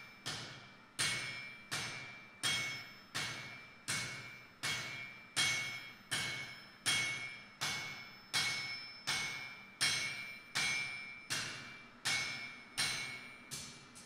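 Hammer blows on an anvil in a steady rhythm, about three strikes every two seconds, each blow ringing out with a clear metallic tone that fades before the next.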